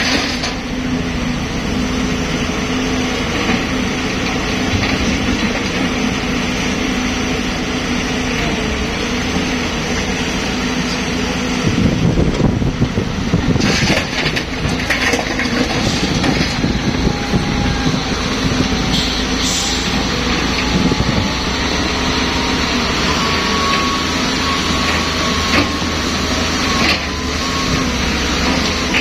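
Cat 320B excavator's diesel engine running steadily as it loads a dump truck, with soil and rock spilling into the steel truck bed. A louder rattle of falling rock comes about twelve to fourteen seconds in.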